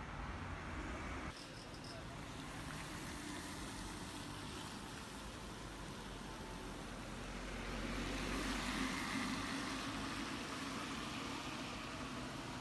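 Street traffic, then after a sudden change about a second in, a trolleybus running with a low hum, growing louder for a couple of seconds around two-thirds of the way through.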